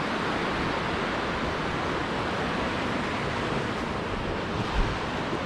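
Steady rush of a creek running over rocks, an even wash of water noise. A brief low thump sounds near the end.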